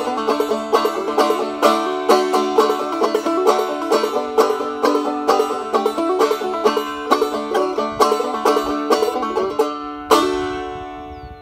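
Resonator banjo played clawhammer style: an instrumental passage of steady, rhythmic picking that ends about ten seconds in on a final struck chord, which rings out and fades.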